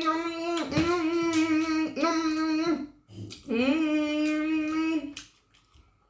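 A woman's voice humming long, level notes of relish, about four held 'mmm' sounds of a second or so each with short breaks, fading out about five seconds in.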